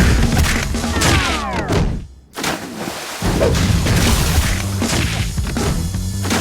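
Background music overlaid with slapstick sound effects: a falling glide about a second in, then a sudden cut to near silence just after two seconds. The music returns with thuds and impact hits.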